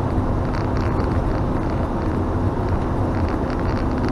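Steady engine and tyre noise of a moving vehicle, heard from inside the cab while cruising along the road.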